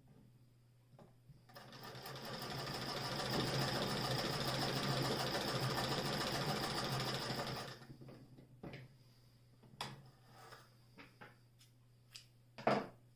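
Singer 28K vibrating-shuttle sewing machine turned by its hand crank: it picks up speed about a second and a half in, runs with a fast, even chatter for about six seconds, then stops. A few separate clicks and knocks follow, the loudest near the end.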